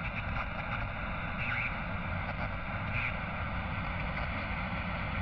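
Old reel-to-reel film projector running: a steady mechanical whirring with a fast, even rattle.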